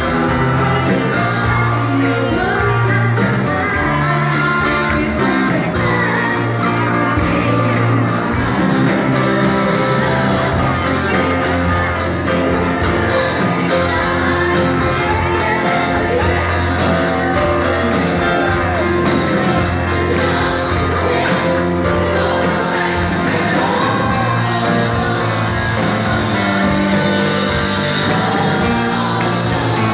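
Live pop band playing: three women singing over electric guitars, bass, keyboard and drums, amplified in a large hall.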